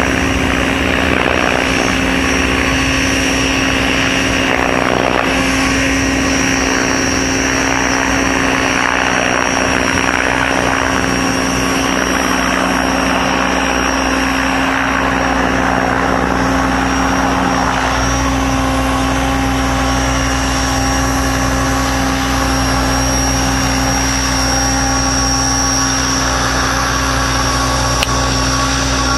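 Electric RC helicopter's rotor and motor, heard from the ground as a steady whirring drone with a clear pitch while the helicopter descends toward its landing spot. The low hum grows stronger about two-thirds of the way through as it comes closer.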